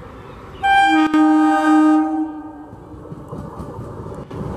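Electric multiple unit local train's horn sounding one blast of about two seconds, several pitches together, with a brief catch just after it starts. The rumble of the approaching train then grows louder.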